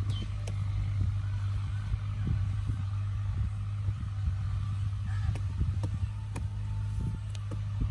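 Short-handled hand hoe chopping and scraping into dry, stony soil: irregular sharp strikes a few times a second, over a loud, steady low hum.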